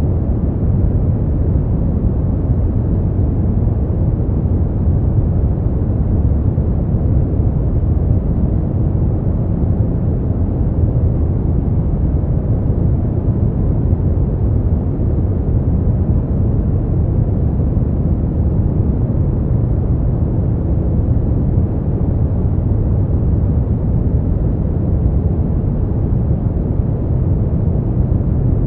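Steady brown noise: an even, deep rumbling hiss, strongest in the bass and falling away toward the treble, with no changes.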